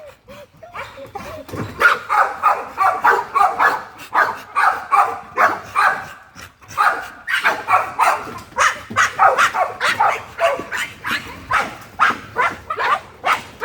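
Bully-breed dog barking over and over, two or three short barks a second, with a couple of brief pauses.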